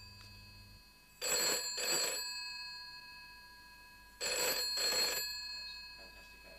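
Telephone bell ringing with the British double ring: two pairs of short rings, one about a second in and another about four seconds in, each fading away after the pair.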